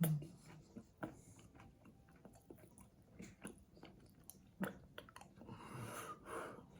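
A person chewing a mouthful of food close to the microphone, with scattered faint mouth clicks and breaths.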